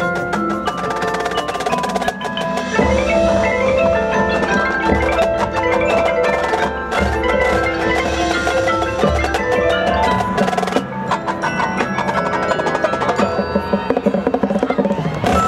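High school marching band and front ensemble playing a field show: mallet percussion such as marimbas and xylophones strikes quick runs of notes over held ensemble chords. A heavy low bass part comes in about two and a half seconds in and the music stays loud throughout.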